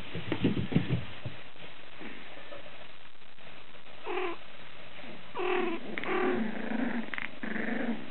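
Cavalier King Charles Spaniel puppy whining: a short high whine about four seconds in, then a longer run of whines and whimpers near the end. A few low thumps come in the first second.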